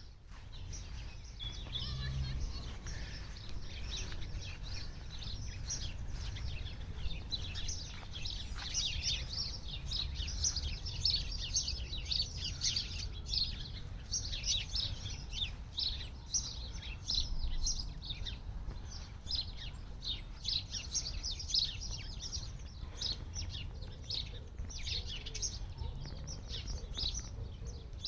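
Songbirds chirping and twittering in quick, dense runs of short high notes, growing busier after the first several seconds, over a steady low rumble.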